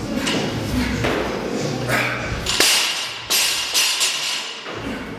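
Barbell loaded with bumper plates being lifted and set back down on rubber gym flooring, with a sharp knock about halfway through and a few more knocks and clatters soon after, over background voices.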